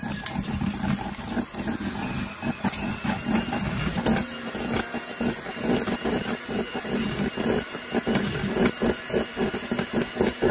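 National electric hand mixer running at speed, its twin wire beaters whipping egg whites into meringue in a stainless steel bowl: a steady motor hum with a rapid, irregular clatter of the beaters in the bowl.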